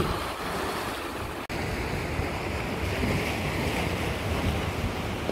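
Sea waves washing and breaking over rocks, a steady surf wash, with wind buffeting the microphone. The sound drops out for an instant about a second and a half in.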